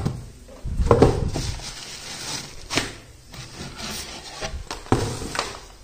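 Shoes and bagged items being pulled out of a shoe cabinet by hand: scattered rubbing and scraping with a few light knocks.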